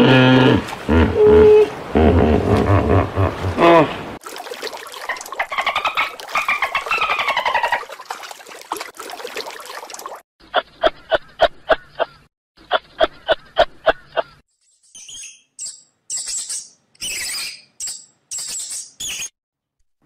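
A succession of different animal calls: pitched calls with deep undertones for the first few seconds, then rising and falling calls, then a run of rapid pulsed calls at several a second, and last a string of short high-pitched squeaks.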